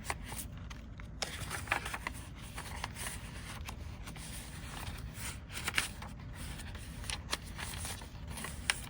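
Paper pages and pockets of a handmade junk journal rustling as they are handled and turned, in short scattered rustles over a low steady background hum.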